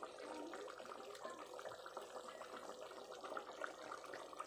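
Pork humba simmering in a pot: the thickened, sticky braising sauce bubbling with many small, irregular pops.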